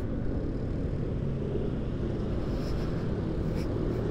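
Steady ride noise from a Yamaha NMAX scooter on the move: engine, tyre and wind noise at the rider's microphone, low and even throughout.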